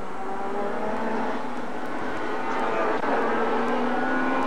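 Alfa Romeo 155 V6 TI touring cars' V6 engines running at high revs on track, several engine notes together, their pitch climbing slowly as the cars accelerate.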